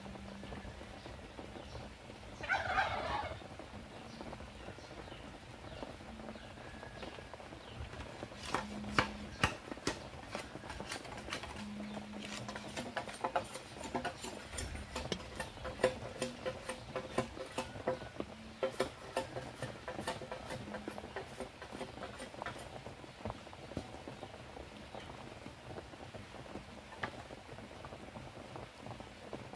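A domestic fowl calls once, briefly, about three seconds in. Later comes a long run of scattered sharp clicks and taps.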